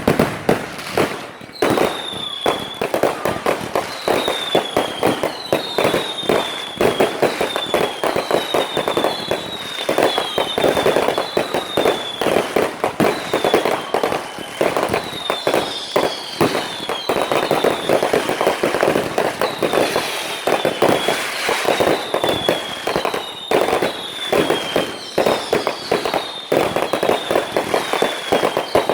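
Fireworks going off: a dense, continuous crackle of rapid pops, with short whistles that fall slightly in pitch about every second or two.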